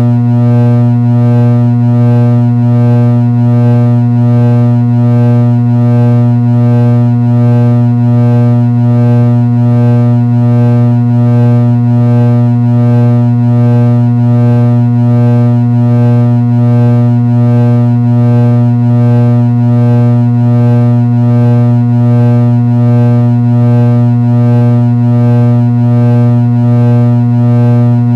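Ceiling fan motor buzzing: a steady, low electrical hum with a faint waver about once a second.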